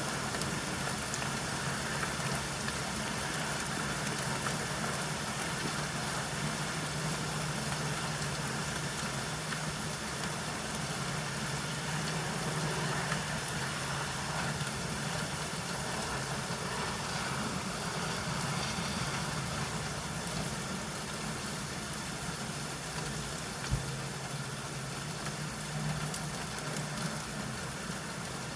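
Steady rainfall: an even hiss with a low rumble under it and a few isolated sharp clicks.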